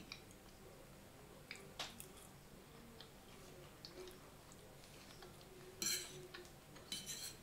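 Metal fork clicking and scraping on a plate while someone eats, with faint chewing. A few light clicks, then two short, louder scrapes near the end.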